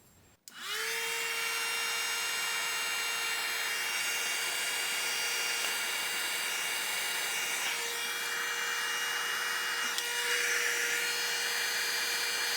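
Electric heat gun switched on about half a second in and running steadily: a fan-motor whine over an airy rush, blowing hot air onto heat-shrink sleeving on the wiring.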